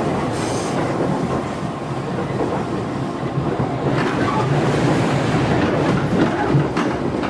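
Running noise of a JR 211 series electric multiple unit heard from inside the passenger car: a steady rumble of wheels on rail, with a couple of sharper clicks about four and nearly seven seconds in.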